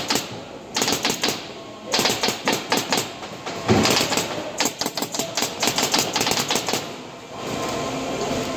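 Rapid bursts of sharp clicks or taps, several a second, from a tool being worked in a workshop. They stop briefly a couple of times and give way to a steady background sound near the end.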